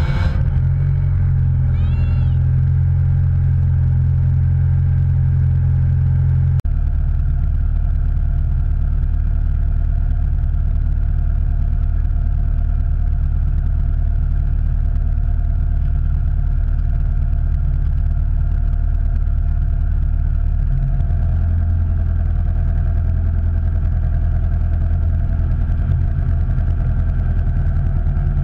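A motor vehicle running with a steady low drone. About six and a half seconds in, a click and an abrupt change in the drone, with another shift about three-quarters of the way through.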